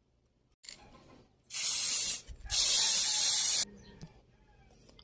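Two bursts of hissing spray, each starting and stopping sharply: the first a little under a second long, the second about a second.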